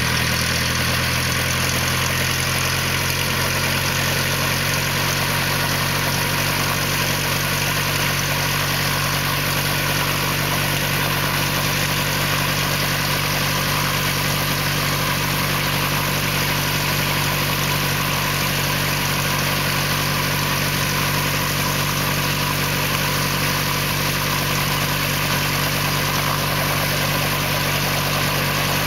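Helicopter engine and rotor running steadily on the ground before takeoff, a loud, unchanging drone.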